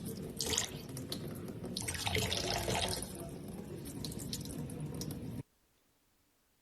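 Water running and splashing, with louder splashes about half a second and two to three seconds in, cutting off suddenly about five seconds in.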